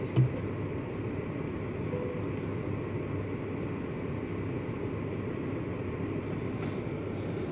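Steady low rumble and hiss inside a car's cabin, with a short thump at the very start.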